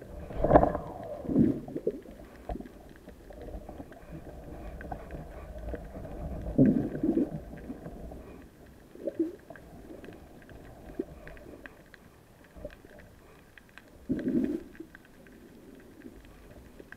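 Underwater water noise on a submerged camera: a low, steady rumble of water moving past, broken by several louder gurgling swooshes.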